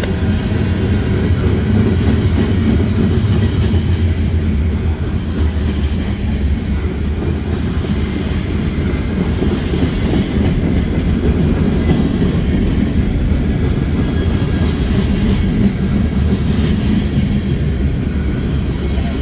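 Freight train cars rolling past on the track: a steady low rumble of steel wheels on rail.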